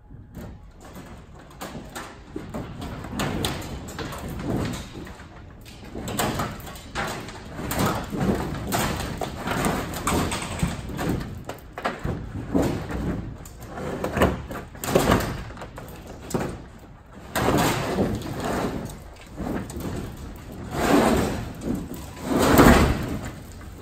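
Thin sheet-aluminum camper roof being pulled and peeled off its frame: repeated bursts of metal scraping, rattling and knocking, the loudest a little before the end as the sheet comes free.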